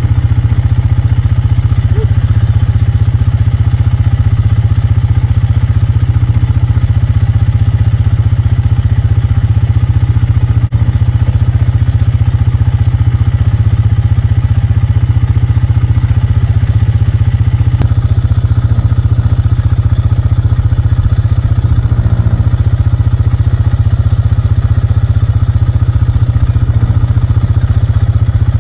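A loud, steady low mechanical drone, like an engine idling, unchanging throughout.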